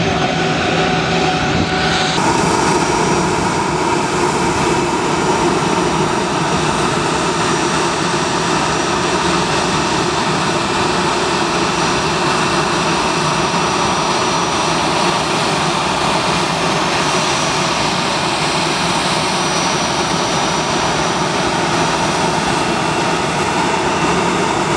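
Airbus A320 jet engines running steadily: a loud rushing whine, with a higher whine coming in about two seconds in.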